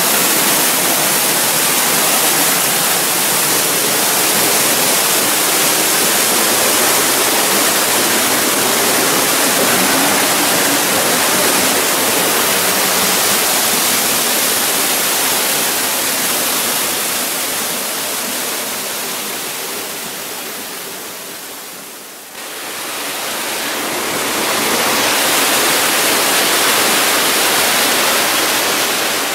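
Dry Falls waterfall rushing, heard close up from the path under the falls as a loud, steady hiss of falling water. It dips about twenty seconds in and comes back abruptly at full strength.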